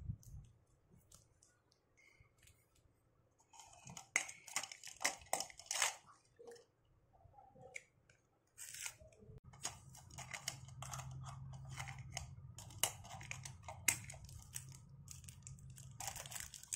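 Plastic stationery being handled and put into a plastic pen stand: crinkling and rustling of packaging, then scattered light clicks and taps of pens, pencils and scissors against the holder.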